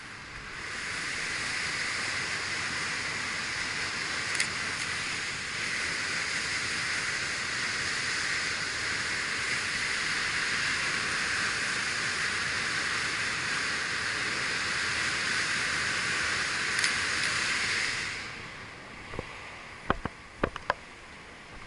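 Steady rush of water pouring out of a concrete gravity dam into its stilling basin. It swells in just after the start and fades away near the end, followed by a few sharp clicks.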